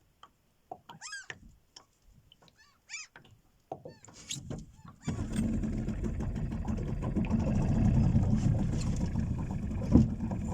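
A seagull gives several short mewing cries; about halfway through, the boat's outboard motor starts and runs steadily, with a single knock near the end.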